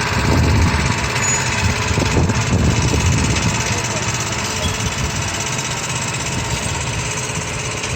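Engine of a street-sealcoating rig running steadily, with wind rumbling on the microphone.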